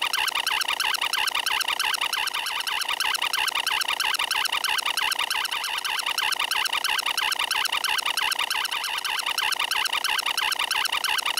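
Electronic glitch sound effect: a harsh, warbling tone made of one short fragment repeated rapidly and evenly, strongest in a high, shrill band, like a malfunctioning machine.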